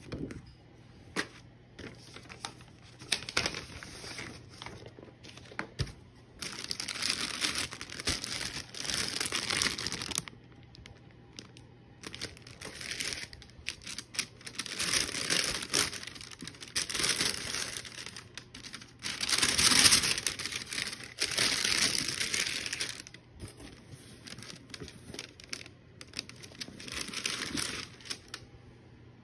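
Paper boot-wrapping bags rustling and crinkling in repeated bursts of a few seconds each as boots are unwrapped in a cardboard box, with a few sharp clicks in the first several seconds.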